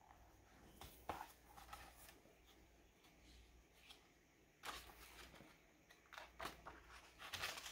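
Near silence with a few faint rustles and soft clicks, a picture book being handled.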